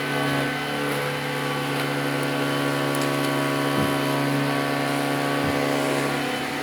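Vacuum cleaner running with a steady motor hum.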